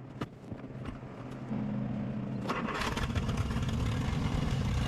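1955 Willys Wagon engine running, getting louder about a second and a half in and revving harder briefly around two and a half seconds, as the stuck clutch is being worked free.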